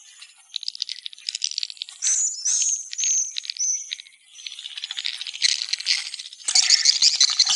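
Swiftlets calling in rapid, rattling twitters, with a few short falling chirps around the middle and a denser, louder chorus starting about a second before the end.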